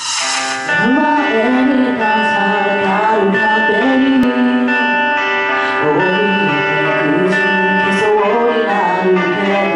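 A woman singing live into a handheld microphone over sustained instrumental chords; her voice comes in just under a second in and glides between held notes.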